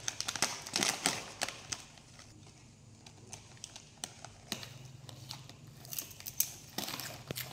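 Plastic snack-chip bags crinkling as they are squeezed and picked at to be opened, in irregular crackles that are busiest in the first second and a half and again near the end.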